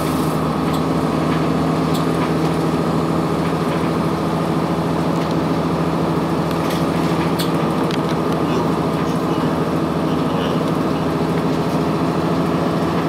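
Cummins ISC inline-six diesel of a 2002 Blue Bird CS transit bus running at a steady speed, heard from inside the passenger cabin as an even drone, with a few light clicks.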